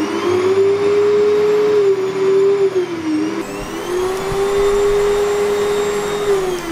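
Canister vacuum cleaner's motor running with a loud, steady whine. The pitch dips and recovers about halfway through, then falls near the end.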